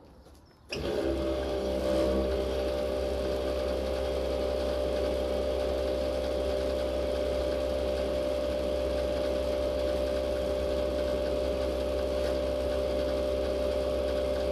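Fuel station dispenser pump starting up about a second in and then running with a steady hum, as diesel is pumped through the nozzle into a car's tank.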